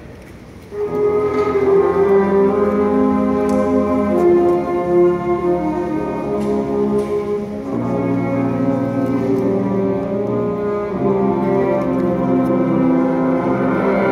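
Marching band brass line playing loud sustained chords. They enter about a second in and change chord every three to four seconds.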